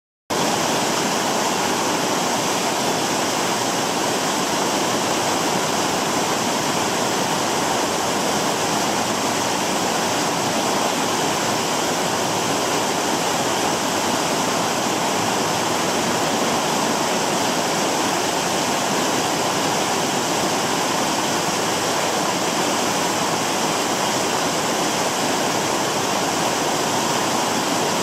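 Water of a man-made cascade waterfall pouring and splashing down over large stacked stone blocks: a steady, unbroken rush that starts abruptly at the very beginning.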